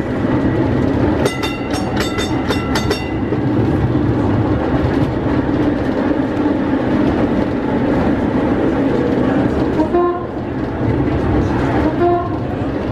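Vintage vicinal tram 9994 running along street track, a steady rumble of motor and wheels on rails heard from inside the cab. About a second in, a warning bell is struck about six times in quick succession, and two brief tones sound later on.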